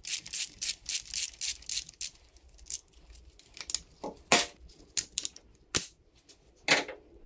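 Ratchet wrench clicking in quick repeated strokes, about four to five a second, as a bolt is worked loose on a dirt bike's frame. The clicking stops about two seconds in, and then come a few scattered metal clinks and knocks as the loosened part is handled and taken off.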